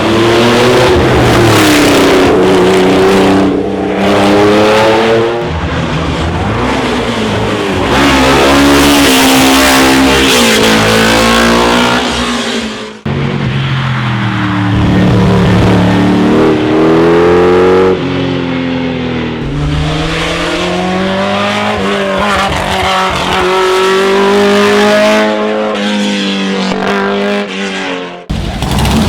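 Racing car engines at full throttle up a hillclimb, their pitch climbing and dropping sharply again and again through gear changes. The sound breaks off abruptly about 13 s in and again near the end, and a different car is heard after each break.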